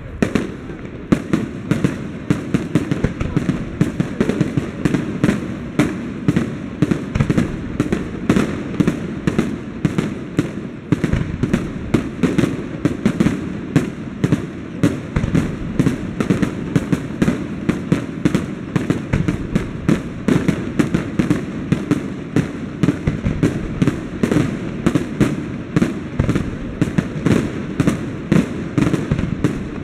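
Fireworks display: aerial shells bursting in a dense, unbroken barrage, several sharp bangs a second over a continuous rumble.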